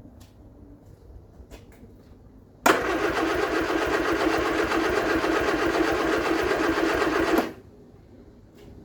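A Vauxhall Viva HC's starter motor cranking the engine for about five seconds in a fast, even rhythm, then cutting off sharply without the engine catching. A few faint clicks come before it.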